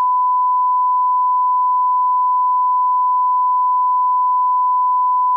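Censor bleep: one unbroken, steady pure tone at a single pitch, laid over the recording so that it blots out part of the spoken testimony.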